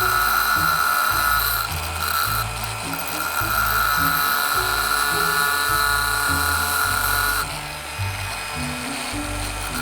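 Angle grinder whining as it cuts down the tab of a metal door strike plate. The whine eases off briefly about two seconds in and drops away near the end, over background music with a changing bass line.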